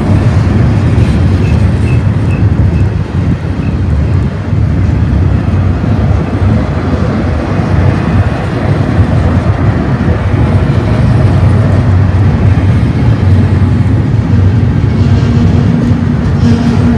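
Loud, steady rumble and rattle of a double-stack intermodal train's well cars rolling past on the rails. A steady low hum comes in near the end.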